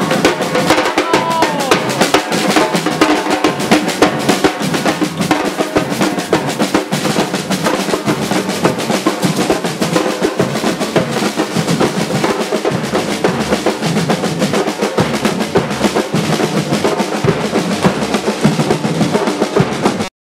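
A group of drums played continuously in a fast, dense rhythm: snare-drum rolls over bass-drum beats, stopping abruptly at the very end.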